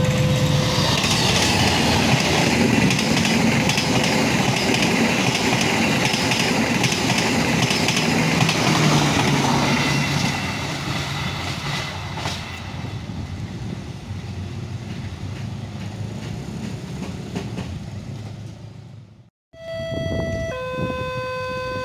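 Argo Parahyangan passenger train, hauled by a diesel locomotive, passing close by: a loud rumble and clatter of the locomotive and carriages on the rails that eases off after about ten seconds as the last coaches go by. Near the end, after a brief cut, a level crossing's electronic warning alarm sounds in repeating steady two-tone beeps.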